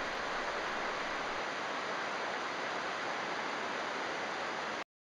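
Whitewater rapids rushing steadily, an even hiss of churning water that cuts off abruptly near the end.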